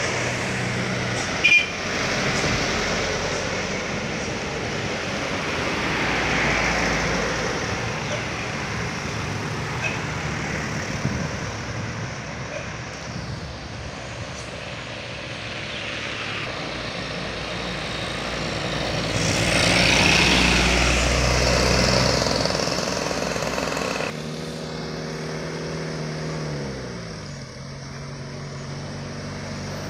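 Loaded sugarcane trucks and other traffic running down a hill road: engines and tyre noise, with one vehicle passing close and loud about two-thirds of the way through. Near the end an oncoming truck's engine note falls steadily in pitch.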